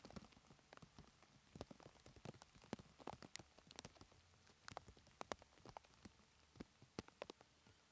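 Faint, irregular clicks and light thuds of a horse's hooves on a sand arena, several a second, over near silence.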